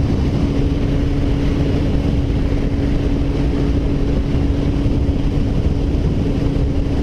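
Yamaha FZ1's inline-four engine running at a steady highway cruising speed, one even tone throughout, with wind rushing over the camera microphone.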